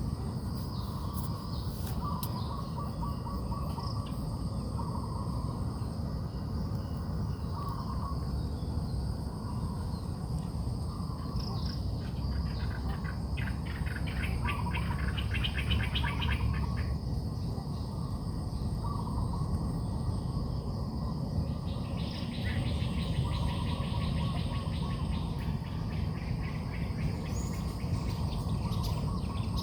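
Outdoor nature ambience: birds chirping in short repeated calls while insects keep up a steady high-pitched buzz, with two longer stretches of fast trilling. A constant low rumble lies underneath.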